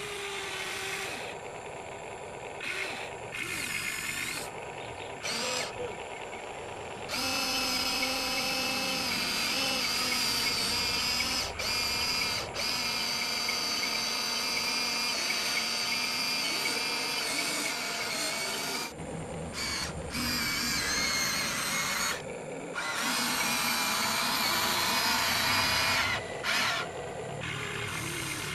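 Electric motors and plastic gearboxes of a Huina radio-controlled excavator whining as its arm and tracks move. The whine runs in spells and stops briefly several times, growing louder about seven seconds in.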